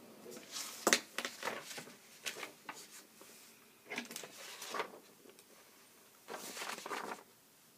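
Quiet breath and mouth noises of someone tasting beer, short breathy puffs and one longer breath near the end, with a sharp click about a second in.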